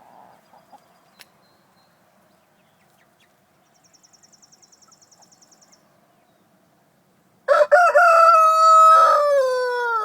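A rooster crowing once, a long, loud cock-a-doodle-doo that starts about seven seconds in and drops in pitch at its end. Before it, faint chicken sounds and a brief rapid high trill.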